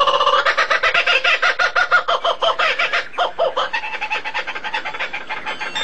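A bird calling in a fast run of pitched pulses, about eight a second, thinning out and fading after about three seconds.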